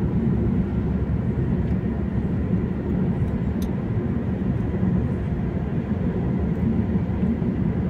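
Steady low road and engine rumble of a car driving along a highway, heard from inside the cabin.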